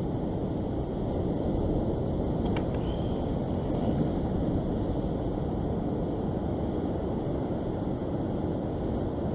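Steady low wind noise buffeting the microphone, with a faint click about two and a half seconds in.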